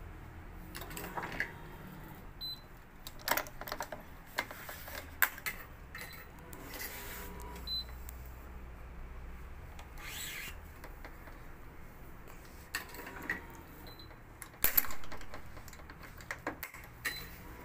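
Badminton racket stringing on an electronic stringing machine: scattered sharp clicks and clacks as the tension head and frame clamps are worked, with swishes of nylon string being drawn through and a few very short high beeps.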